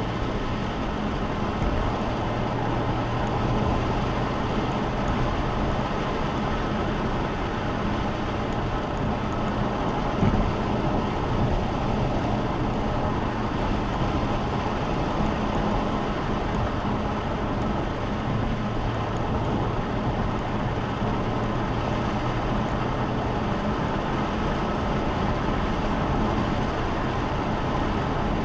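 Car driving at a steady pace: a low engine hum with road and tyre noise, and one short knock about ten seconds in.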